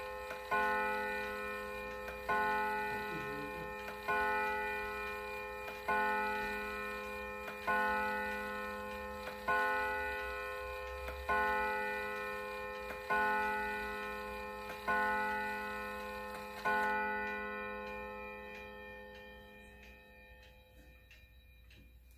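Pendulum wall clock striking noon on its gong: ten evenly spaced ringing strikes about two seconds apart, each fading slowly before the next. After the last strike, about three-quarters of the way in, the tone dies away under the clock's faint ticking.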